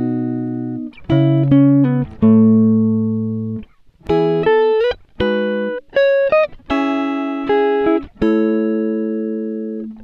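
Instrumental background music of plucked notes and chords, each struck and left to ring out and fade, with a short break a little before the middle.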